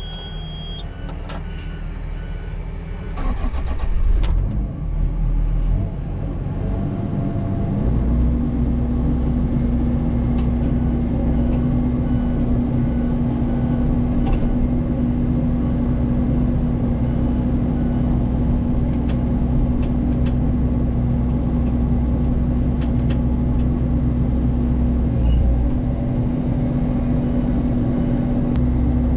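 Mini excavator running a Rut hydraulic brush cutter: the engine and hydraulics run steadily, and about eight seconds in the sound grows louder and settles into a steady hum that holds, with a brief dip shortly before the end.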